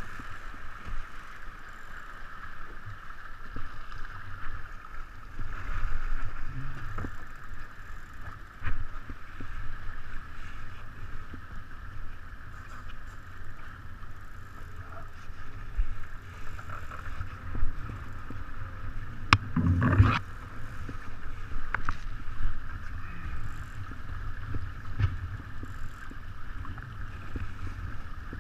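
A 49er skiff under sail: wind buffeting the microphone over a steady rush of water along the hull. Scattered clicks and knocks come from the boat, with a louder knock about twenty seconds in.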